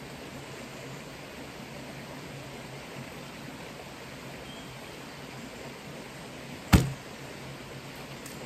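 Steady hiss of liquid being sprayed over a chicken coop's woodwork and nest boxes, with one sharp knock a little before the end.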